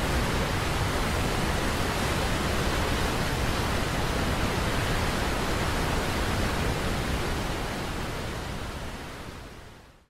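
Steady rushing of a rocky river's rapids and small waterfall, an even roar of water that fades out over the last few seconds.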